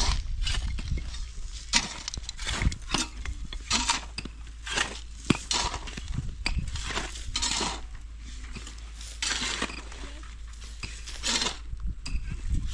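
Shovels and a pickaxe striking and scraping dry, stony ground: an irregular run of metal chinks, scrapes and crunches from several people digging at once.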